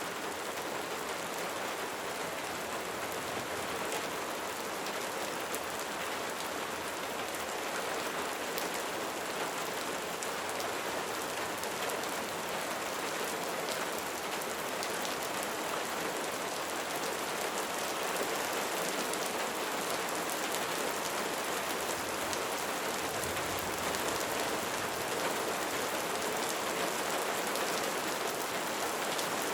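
Light rain falling steadily, a dense even hiss of raindrops with faint scattered drop ticks.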